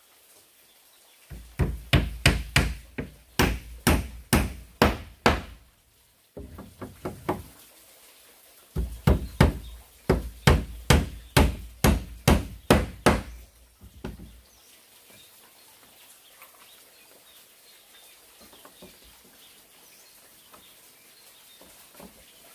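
Runs of hard blows from a hand tool striking wood, about two to three a second: a long run, a short softer one, then another long run that stops about fourteen seconds in.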